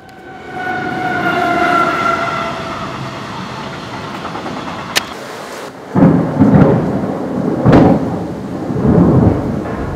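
Thunder: a rising hiss with faint held tones builds, a sharp crack comes about five seconds in, then heavy low rolls of thunder surge several times.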